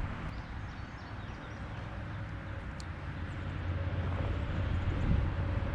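Outdoor river ambience: a low rumble that grows louder toward the end, with faint bird chirps and a single sharp click about three seconds in.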